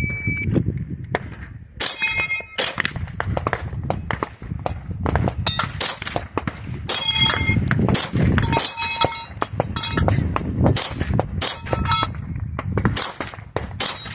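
Shot-timer start beep, then a string of pistol shots from a Sig Sauer P320, each hit answered by the clang of a steel plate ringing.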